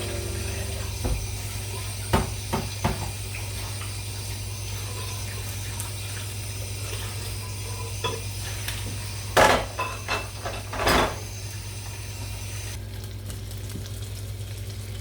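Dishes and cutlery clinking and knocking, with a few sharp knocks early and three louder scraping clatters a little past the middle, over a steady low hum.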